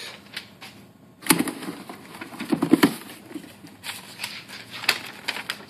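Folded paper slip rustling and crinkling as it is handled and unfolded, with a burst of rustling after about a second and scattered sharp crackles later on.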